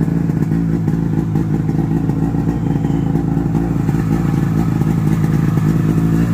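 1994 Ski-Doo Safari L snowmobile's two-stroke engine idling steadily, running great after a carburetor cleaning.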